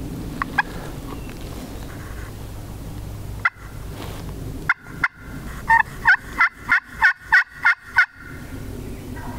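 Turkey pot call (friction call) played with a wooden striker, imitating a hen: a few short single notes, then a run of about nine yelps at about three a second, each note breaking from high to low. The calling is meant to strike a gobbler into answering.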